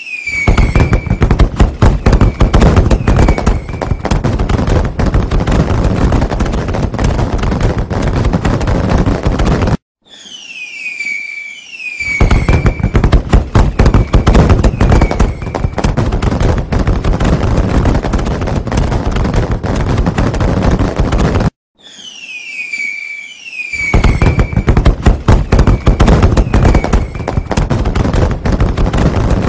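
Fireworks: a few high falling whistles, then several seconds of dense crackling bangs that cut off suddenly. The same stretch repeats about every twelve seconds, so it is heard as a loop.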